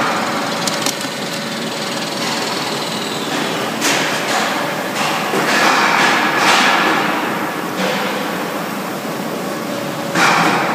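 Large CNC gantry milling machine milling a welded steel tube frame: a steady machining din from the spindle and cutter, with louder spells of cutting noise about four seconds in, around six to seven seconds, and again near the end.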